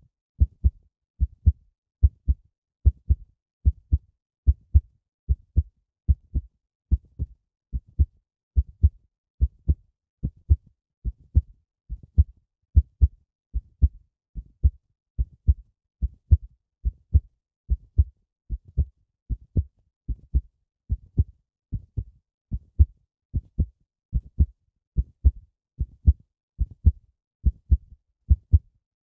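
Recorded heartbeat sound effect: steady low double thumps, lub-dub, a little over one beat a second.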